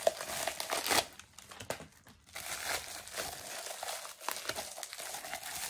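Bubble wrap and crepe paper crinkling and rustling as they are pulled off by hand, with a short lull about a second in before the crinkling resumes.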